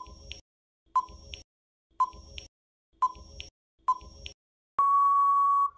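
Quiz countdown timer sound effect: five short beeps a second apart, then one longer steady beep as the countdown runs out.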